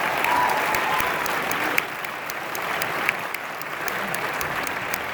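Audience applauding, easing off somewhat after about two seconds.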